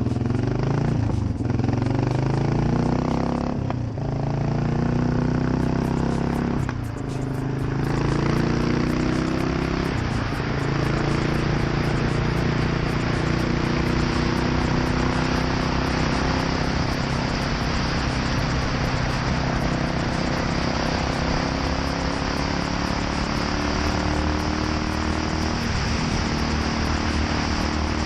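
2008 Yamaha SR400's air-cooled single-cylinder engine through a NitroHeads aftermarket muffler, pulling through the gears: its pitch climbs and drops back three times in the first eight seconds or so, then it holds a steady note at a constant speed with a steady rushing hiss.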